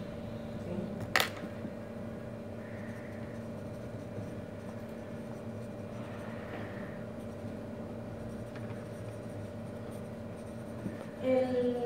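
Steady low hum with one sharp click about a second in; a woman's voice starts speaking just before the end.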